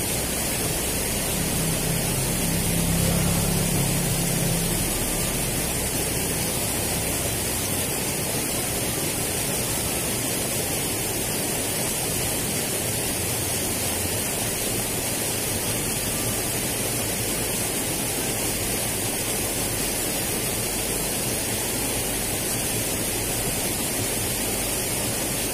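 Steady rush of fast-flowing water in a stone-lined drainage channel. A low hum swells and fades during the first few seconds.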